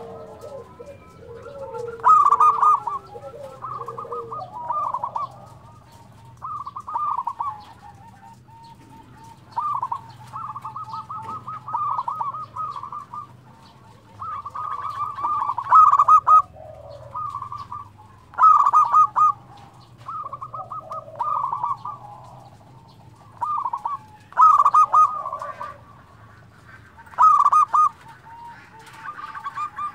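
Zebra doves (perkutut) cooing, repeating their rippling phrases about every two to three seconds.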